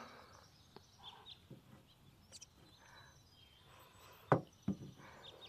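Faint, scattered bird chirps in a quiet room tone, with two sharp knocks about four and a half seconds in.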